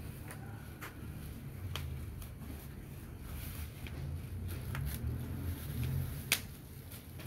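Scattered sharp clicks and ticks, with one louder click near the end, over a low steady rumble.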